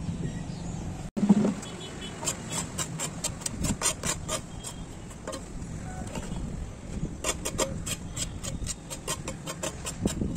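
Small hand trowel scraping dried weeds and soil across a concrete floor in quick, irregular strokes, several a second, coming in clusters. A short loud thump about a second in.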